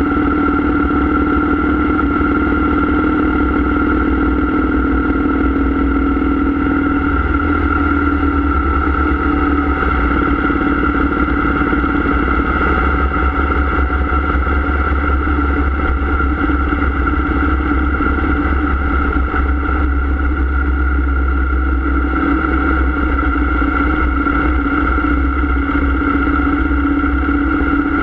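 Harley-Davidson Heritage Softail Classic's air-cooled Twin Cam 96 V-twin engine running steadily at a cruise, with no marked revving or gear changes.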